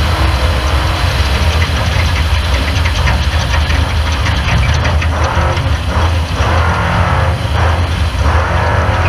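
Off-road race car's engine running with a steady low rumble, with swells of rushing noise from about five to eight seconds in.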